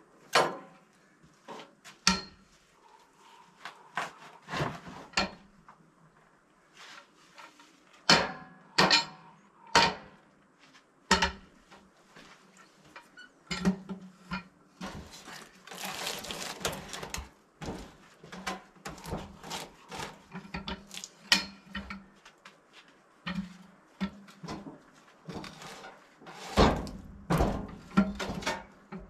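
A series of irregular knocks and clunks, as of objects being handled and set down, over a faint steady hum, with a short hiss about sixteen seconds in.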